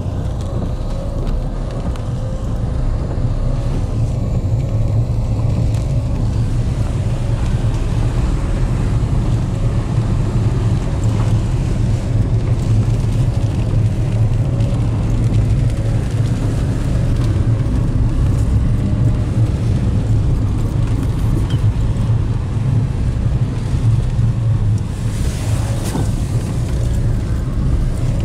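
Car engine and tyre noise heard from inside the cabin while driving on a wet road, a steady low rumble. Near the end a brief louder hiss rises over it.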